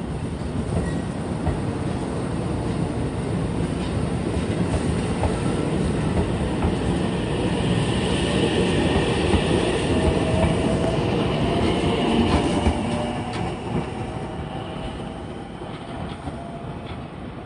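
JR 313 series electric train moving slowly past along a station track, with wheels clattering over the rail joints and a rising whine from the motors. It is loudest about ten to twelve seconds in, then fades as the train pulls away.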